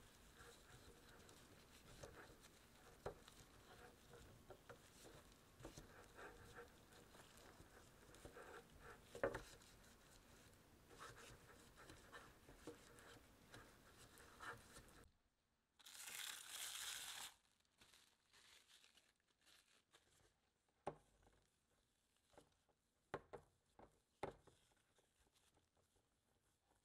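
Faint rustling and light taps of gloved fingers spreading butter in the cells of a nonstick financier pan. About 16 seconds in comes a short hissing rustle, followed by sparse small clicks and scrapes of a silicone spatula working thick batter in a stainless steel bowl.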